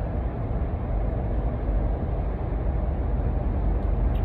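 Steady low rumbling noise with no distinct events, heaviest in the deep bass.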